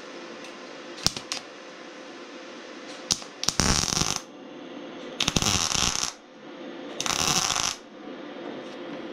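MIG welder laying three short crackling welds, each under a second long, on a rusty steel tractor diesel tank, with a couple of sharp clicks shortly before the first.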